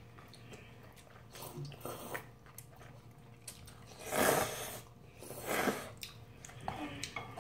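Instant ramyeon noodles being slurped, two loud slurps at about four and five and a half seconds, with quieter chewing and a few light clicks in between.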